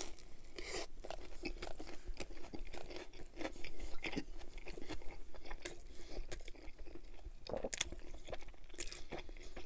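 Close-miked chewing of a chicken Caesar wrap, with many small crisp crunches from the croutons inside it.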